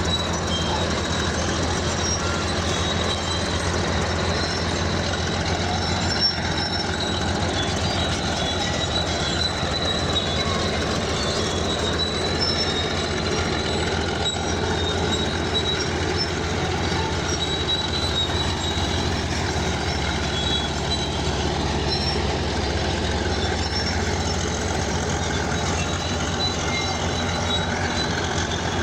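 Crawler bulldozer at work: its diesel engine running steadily under a continuous high-pitched metallic squeal from the steel tracks.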